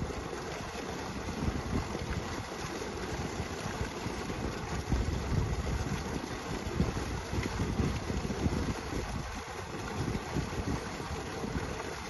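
Solar pump's water outflow gushing from a pipe and splashing into a flooded field, a steady rush, with wind buffeting the microphone in gusts.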